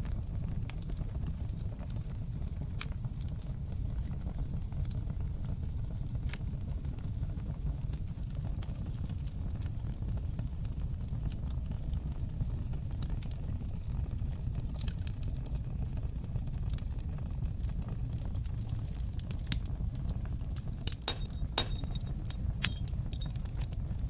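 Wood fire burning in a fireplace: a steady low rumble of flame with scattered sharp crackles and pops, and a quick run of louder pops near the end.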